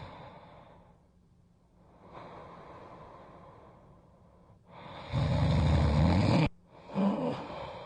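A person snoring: a loud snore dies away, and a softer breathy breath follows. About five seconds in comes a loud, low rasping snore that cuts off suddenly, then a short snort.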